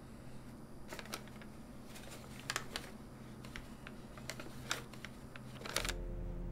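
Knitting needles clicking together at an irregular pace over a faint low hum. Near the end a louder, steadier low hum comes in.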